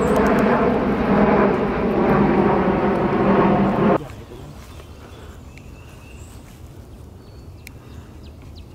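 A steady engine-like drone that cuts off abruptly about four seconds in, followed by a quiet outdoor background with a few faint high chirps.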